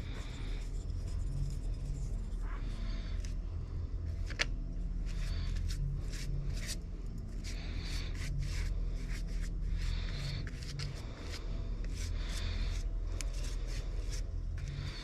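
Repeated short scraping strokes over a steady low hum.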